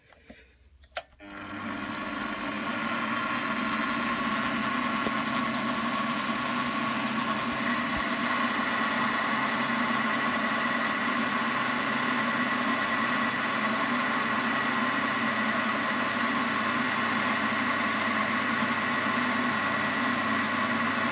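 Warco metal lathe switching on about a second in and then running steadily with its gear whine, the spinning chuck driving a boring bar through an aluminium blank. A steady higher whine joins about eight seconds in.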